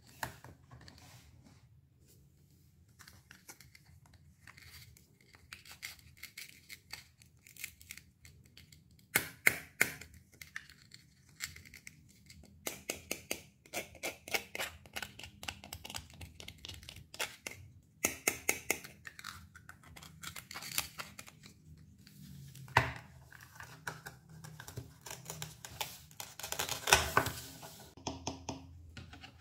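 Fresh fruit and vegetables being cut with a knife: a series of crisp slicing cuts and sharp knocks, some in quick runs, with a single loud knock and a dense crunchy stretch near the end.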